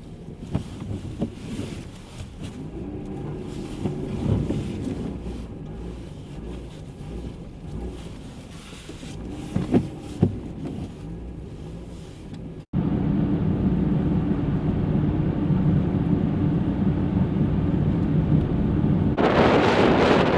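Wind buffeting the microphone over a vehicle's running engine. A cut about 13 s in brings a louder, steady engine hum, and near the end a strong gust of wind hiss sweeps over it.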